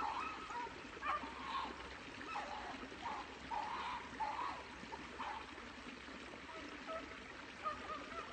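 Shallow stream trickling and running over debris, a steady wash of water. Faint short pitched calls come and go over it, mostly in the first half.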